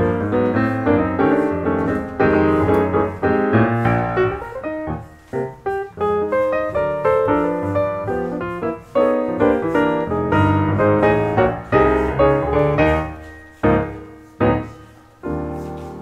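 Piano music: a steady run of struck notes, each ringing and fading.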